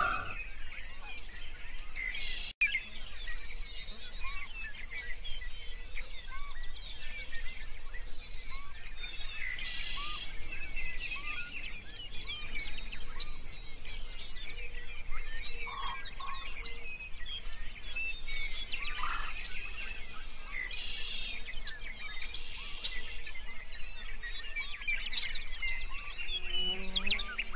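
A dense chorus of many small birds chirping and twittering over each other, with a brief dropout about two and a half seconds in.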